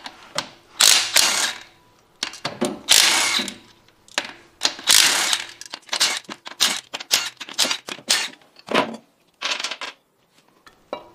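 Ratchet wrench clicking through strokes on the flywheel bolts as they are loosened: three longer runs of clicks in the first five seconds, then a quick string of short strokes and one last run near the end.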